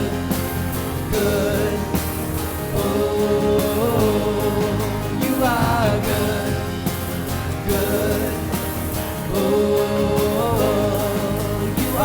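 Live worship band playing a contemporary Christian song with singers.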